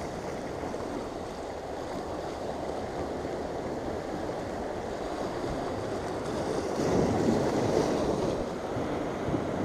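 Sea waves washing against rocks at the water's edge. A wave breaks louder against the rocks about seven seconds in.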